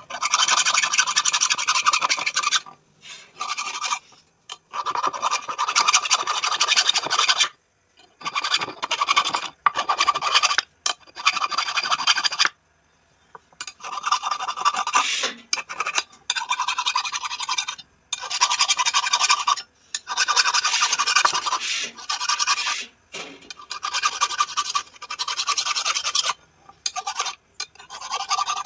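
Flat hand file rasping across a forged metal spear, in runs of quick strokes broken by short pauses.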